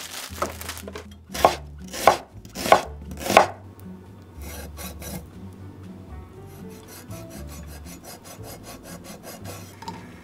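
Kitchen knife slicing food on a wooden cutting board: four loud drawn strokes in quick succession in the first few seconds, then a long run of quicker, lighter rasping strokes as the blade scores the skin of a salmon fillet.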